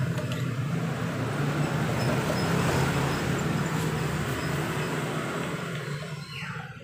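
Steady low drone of vehicle noise.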